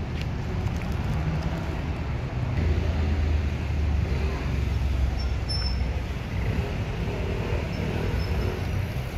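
Steady traffic noise of a busy city road. A low engine rumble from a passing heavy vehicle builds about two and a half seconds in and fades after about six seconds.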